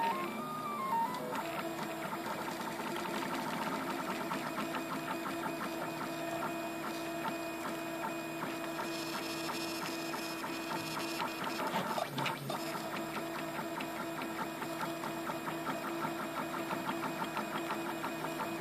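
RepRap 3D printer running, its stepper motors humming with a fast, regular ticking as the hot end lays down a small round layer. A short louder burst of motor noise comes about two-thirds of the way in.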